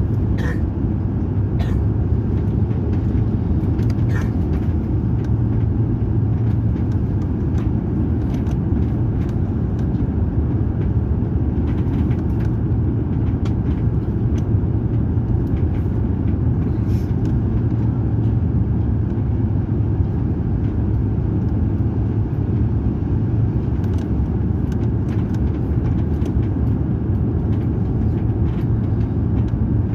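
Steady low rumble of engine and airflow noise inside the cabin of an Airbus A350-900 descending on final approach, with a few faint ticks over it.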